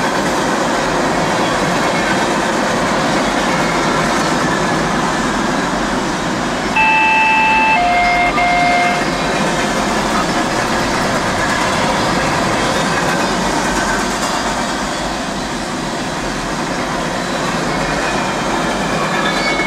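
CSX freight train's cars rolling past on the rails, a steady, loud rolling noise. About seven seconds in a horn sounds briefly, stepping down to a lower note for about another second.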